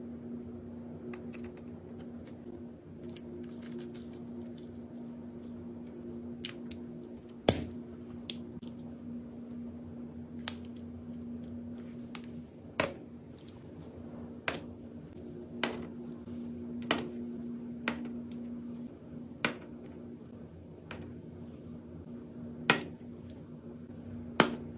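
Sharp clicks and taps of small hard objects being handled, about a dozen at irregular intervals, the loudest about seven and a half seconds in, over a steady low hum.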